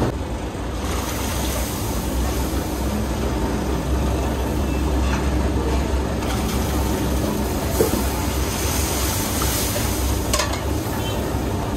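A steady low rumble with a hiss over it, with two short light clicks, about eight and ten and a half seconds in.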